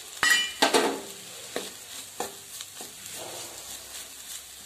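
Wooden spatula stirring and scraping a dry beef brain and egg thoran in a frying pan, over a steady low sizzle. Near the start come two sharp knocks against the pan, the first with a short metallic ring, followed by several softer scraping strokes.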